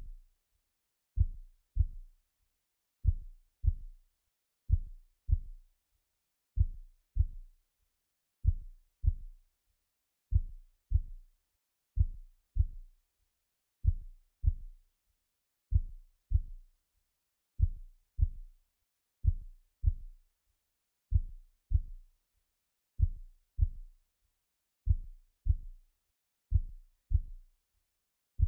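Slow heartbeat sounds: soft, low lub-dub pairs of thumps repeating steadily, one pair about every second and three quarters.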